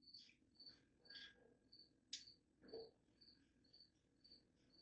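Near silence, with a cricket chirping steadily at about three short high chirps a second. There are a couple of faint knocks about two and three seconds in.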